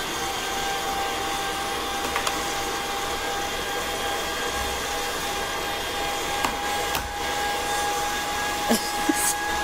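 KitchenAid stand mixer motor running steadily with the meat grinder attachment on, a constant whine, with a few light knocks scattered through it.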